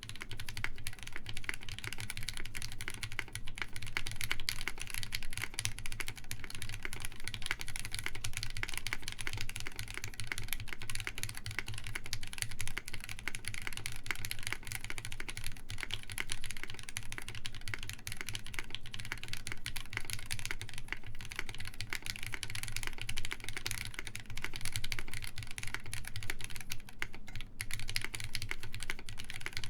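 Continuous fast typing on a Sperno59 mechanical keyboard with lubed SP Star Meteor White linear switches, FR4 plate and GMK Maestro keycaps: a steady stream of key clacks with no foam in the case.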